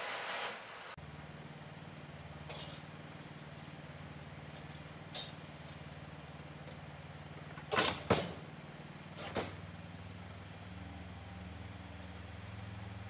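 A vehicle engine idling steadily at a fire-service response van, broken by several sharp knocks and clunks, the loudest a quick pair about two-thirds of the way through, as gear is handled at the open van. A short hiss comes before the idle begins about a second in.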